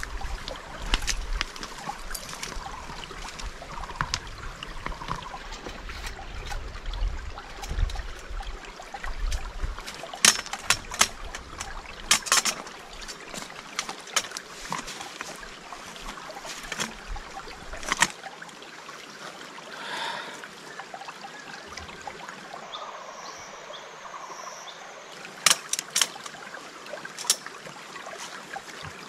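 Water trickling steadily, with scattered sharp knocks and clicks, a cluster of them about ten to thirteen seconds in and more near the end. A low rumble underlies the first third.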